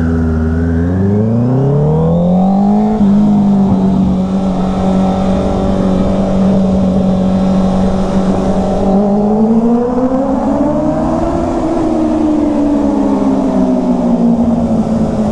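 Sport motorcycle engine under hard acceleration: its note climbs steeply for the first few seconds, holds at a steady high pitch, then rises again briefly in the middle before easing back.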